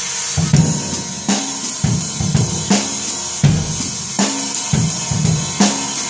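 Acoustic drum kit played in a steady groove: strong bass drum and drum hits every half second or so under a continuous cymbal wash, from cymbals fitted with homemade bead sizzlers.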